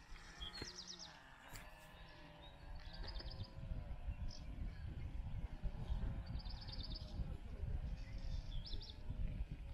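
Wind buffeting the microphone in an uneven low rumble. Over it, a small songbird gives short, rapid trills of high notes four times.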